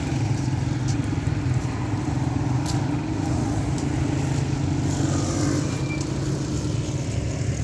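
Steady low engine drone that holds an even level throughout.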